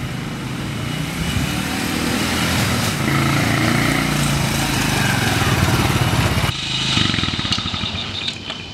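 Small step-through motorbike engine running as it rides up, growing louder as it nears. The sound changes abruptly about two-thirds through and drops away near the end as the bike pulls up.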